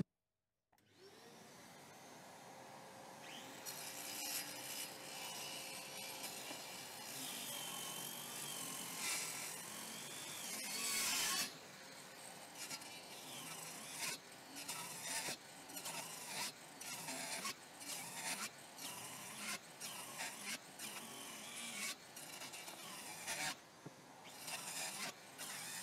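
Parkside cordless circular saw, running on a 4Ah battery, cutting through a wooden beam with a dust-extractor hose attached. After a longer cut, the crosscuts come in quick succession, about one a second, with no sign of the saw slowing down.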